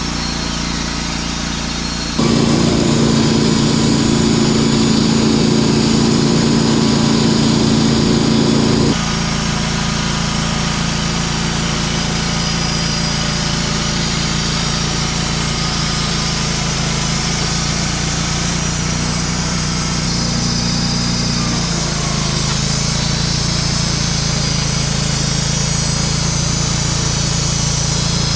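Wood-Mizer LT35 Hydraulic portable sawmill running steadily. Its sound swells louder and heavier from about two seconds in to about nine seconds, then settles back to a steady running note.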